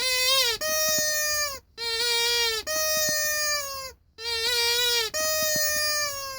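A rubber squeaky toy being squeezed and released three times, each press giving a long squeak and the release a slightly higher one.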